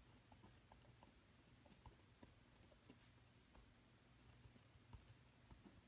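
Faint scratches and small ticks of a pen writing on paper, over a near-silent room hum.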